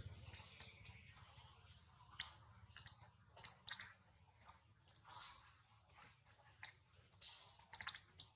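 Faint, irregular sharp clicks and ticks, a few per second, with a quick cluster near the end, over a low steady rumble.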